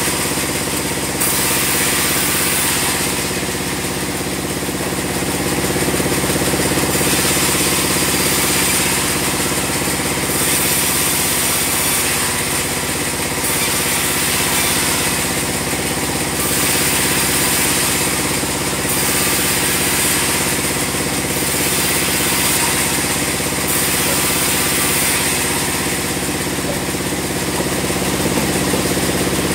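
Band sawmill running: a steady machine drone, with a hiss in the upper range that swells and fades every two to four seconds.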